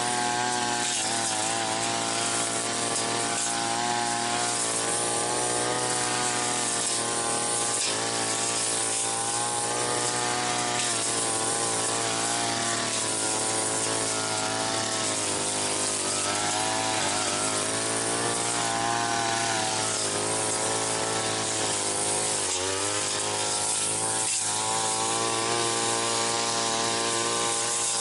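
Brush cutter engine running hard under load, its pitch sagging and recovering again and again as the spinning blade cuts into weeds and brush.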